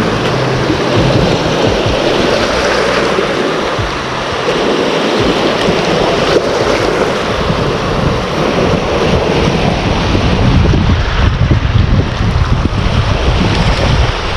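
Wind buffeting the microphone over the wash of sea waves, with gusts rumbling more heavily in the second half.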